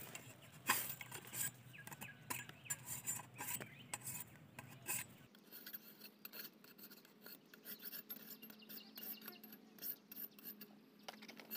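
Faint rustling and scraping of dry bamboo leaves and twigs as hands work a thin branch and fishing-line noose while setting a snare, with scattered small clicks.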